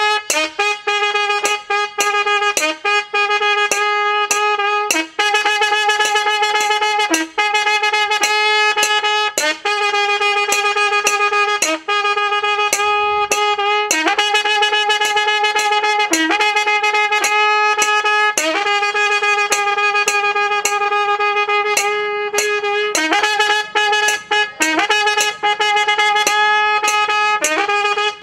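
Kombu pattu: long held notes on the curved brass kombu horn, broken by short pauses every couple of seconds, with small ilathalam cymbals striking in time.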